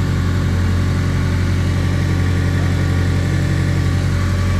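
Acura RSX's turbocharged four-cylinder engine idling steadily.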